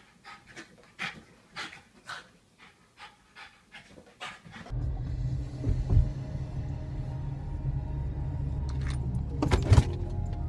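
A dog panting in quick, evenly spaced breaths. About halfway through, this gives way suddenly to the steady low rumble of a car's cabin on the move, with a couple of sharp knocks.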